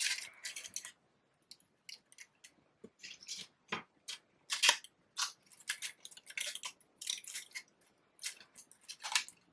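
Paper flowers rustling and crinkling as they are handled and pushed in among the other blooms of a paper bouquet: irregular short crackles, the loudest a little past halfway.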